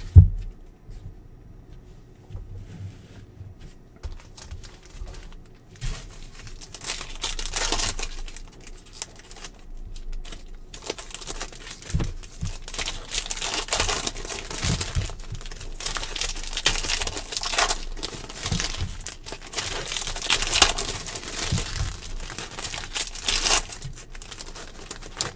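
Foil trading-card pack wrappers crinkling and tearing as packs are ripped open by hand, in dense rustling spells that start a few seconds in. A single sharp thump comes right at the start.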